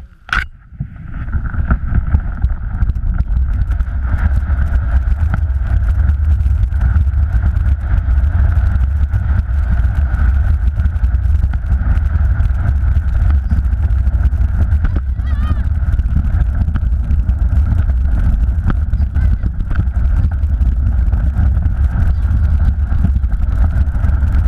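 Snow tube sliding downhill over snow, heard from a camera riding on the tube: a knock as it sets off, then a steady, loud low rumble with a rushing noise above it.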